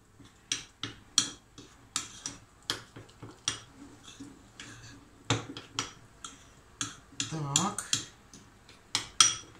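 A utensil stirring thick batter in a ceramic bowl, clinking against the bowl in irregular sharp taps, one or two a second.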